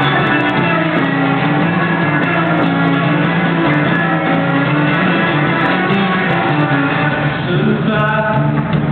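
Live band music: an instrumental passage of steady held notes without vocals, heard from the audience.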